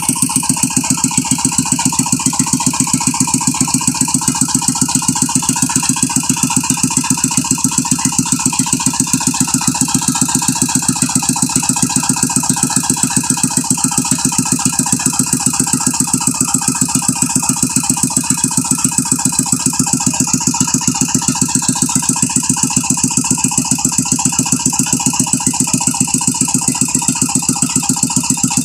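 Brick-making machine running steadily, with a fast, even engine-like beat of several pulses a second and a mechanical rattle that does not change.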